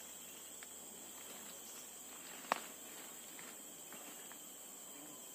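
Steady high-pitched drone of forest insects, with a few faint ticks and one sharp click about two and a half seconds in.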